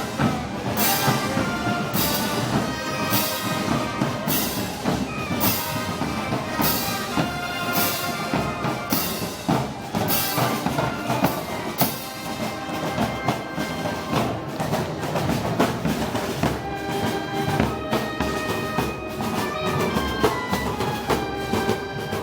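Brass band playing Moros y Cristianos festival music, with brass and heavy drum and cymbal strikes. The strikes fall about once a second for the first half, then the beat turns busier and faster.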